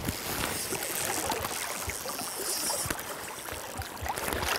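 Fast river current rushing and lapping, with wind buffeting the microphone in irregular low thumps.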